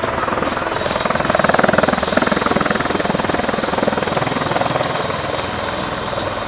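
Bell Boeing MV-22B Osprey tiltrotor hovering in helicopter mode, its two proprotors making a rapid, steady beat as it turns in place.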